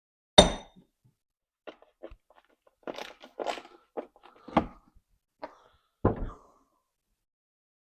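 Thuds, knocks and creaks of a motorcycle wheel and tire being pushed against the jaws of a bench vise to break the tire bead off the rim. A sharp thud comes about half a second in, with further heavy thuds around four and a half and six seconds.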